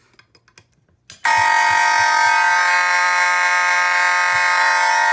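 Simplex and Spectronics 450 mechanical fire alarm horns sounding together in a loud, steady, continuous buzzing blare, which starts about a second in right after a sharp click as the pull station is pulled.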